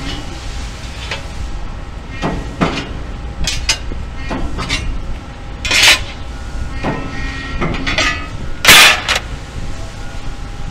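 Press brake bending sheet-metal parts: a steady low machine hum under repeated metallic clanks and knocks as the parts are handled and bent, with two louder noisy bursts about three seconds apart.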